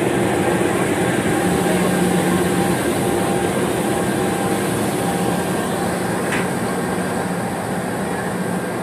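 CC 206 diesel-electric locomotive moving past at close range, its diesel engine running with a steady low hum; a single light click about six seconds in.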